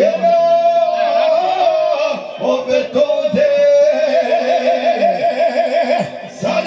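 Live folk band with a violin playing a tune of long, wavering held notes, with men singing along.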